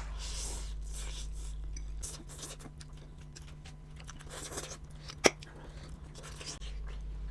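People eating chow mein noodles: soft slurping and chewing noises with utensils working in the plates, and one sharp clink of a utensil against a plate a little after five seconds. A steady low hum runs underneath.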